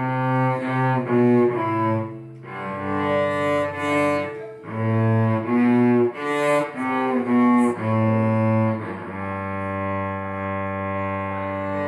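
Solo cello bowed by a beginner, playing a simple melody of separate notes, then holding one long low note from about nine seconds in.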